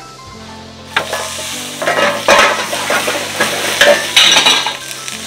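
Food sizzling and frying in a hot steel wok over a high gas flame, with a metal ladle stirring and scraping the pan. It grows loud about a second in, with a few sharp knocks of the ladle on the metal.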